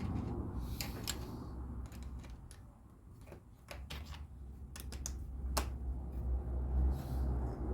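Plastic LEGO pieces clicking as they are handled and pressed together: irregular sharp clicks, over a low steady rumble.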